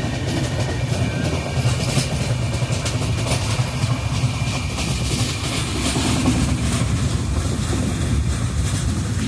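Steady low rumble of a moving vehicle, with frequent rattling clicks throughout.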